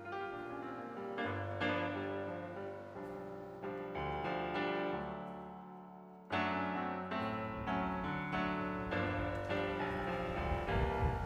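Piano music: struck notes and chords that ring and fade, with one chord left to die away before a louder chord enters about six seconds in.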